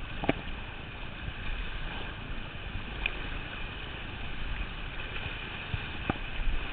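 Steady rush of river water, with a few sharp knocks: one just after the start and one near the end.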